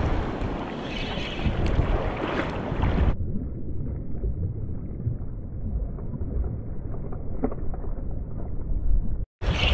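Wind buffeting the microphone over small waves washing on a sandy shore, a steady rushing noise. About three seconds in, the sound abruptly turns dull and muffled, with all the high end gone, and it cuts out for a moment just before the end.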